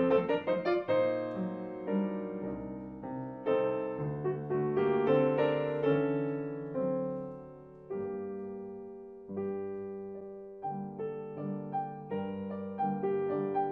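A Fazioli grand piano played solo in a classical piece. Notes are struck and ring out, with held chords dying away through the middle and quicker notes returning near the end.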